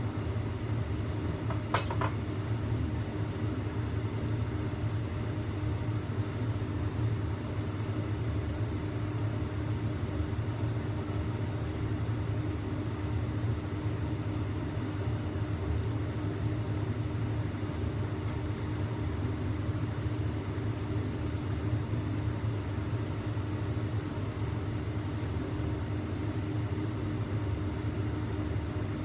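Gas stove burner running under a covered wok of steaming fish: a steady low rumble and hiss of flame and boiling water, with a faint even hum. A single sharp metallic click sounds about two seconds in.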